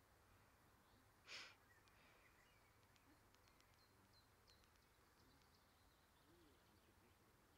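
Near silence: faint outdoor ambience with scattered faint high ticks, and one short burst of noise a little over a second in.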